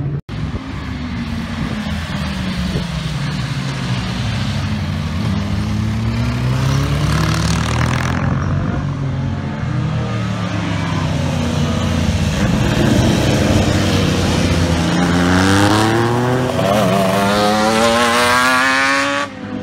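Motorcycle engines riding past one after another, their notes rising and falling as each machine approaches, accelerates and goes by. Near the end a louder bike passes close while revving up hard, its pitch climbing steeply until the sound breaks off.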